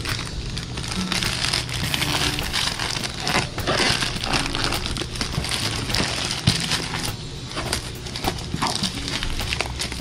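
Plastic courier mailer crinkling and tearing as it is ripped open and a cardboard box is pulled out of it by hand, with faint background music underneath.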